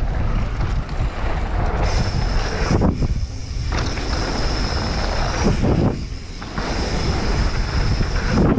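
Mountain bike riding fast down a dirt trail: wind buffeting the camera microphone, with the rumble of tyres rolling over dirt. A steady high whine joins about two seconds in, and the noise drops away briefly twice.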